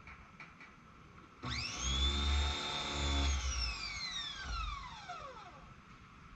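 Pressure washer motor and pump starting with a quickly rising whine, running for about two seconds with a low hum, then shutting off and winding down in a long falling whine.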